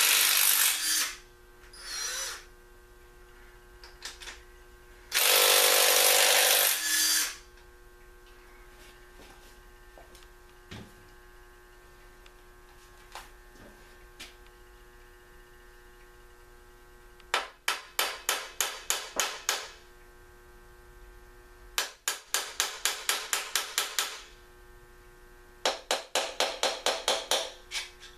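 Cordless impact wrench loosening nuts on an engine block: two long runs in the first seven seconds, then three clusters of quick trigger pulses, about four a second, later on. A steady electrical hum sits underneath.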